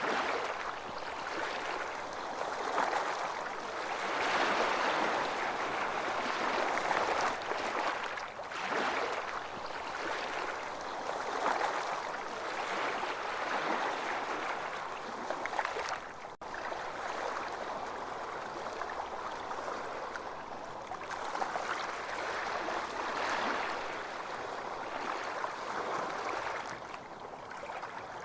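Gentle surf washing onto a beach, the rush of water swelling and easing every few seconds, with a momentary cut-out about halfway through.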